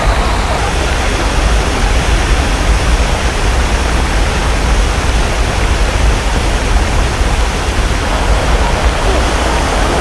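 Waterfall pouring down heavily, heard from right under the falling water: a steady, loud rush with a deep rumble.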